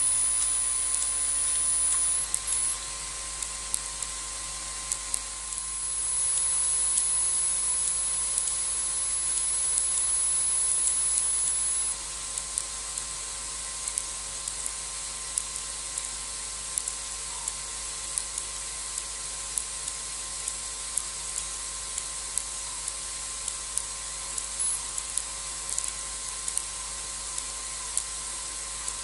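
Outdoor night ambience through a wildlife livecam microphone: a steady hiss with a faint constant hum. A high thin whine runs for the first two seconds and again from about six to twelve seconds in, over faint scattered ticks.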